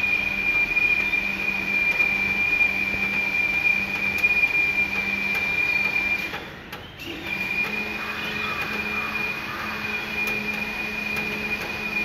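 Steady machine noise: a constant high-pitched whine over a low hum and a wash of noise. It dips briefly a little past halfway.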